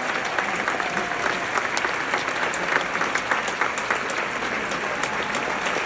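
Large theatre audience applauding, a steady dense clatter of many hands clapping, with clapping close to the microphone.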